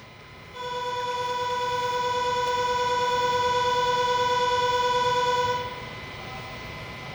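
Nankai Electric Railway's distinctive station departure siren: one steady, unwavering tone held for about five seconds, starting about half a second in and cutting off. It is the signal that the train is about to leave the platform.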